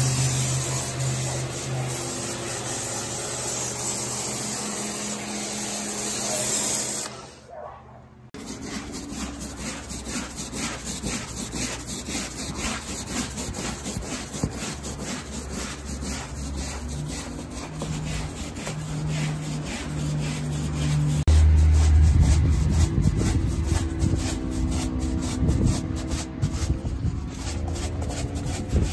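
A Kärcher pressure washer spraying degreaser foam onto car floor carpet: a steady hiss over the motor's hum that stops about seven seconds in. Then a stiff-bristled push broom scrubs a foam-soaked car floor mat in quick, repeated back-and-forth strokes.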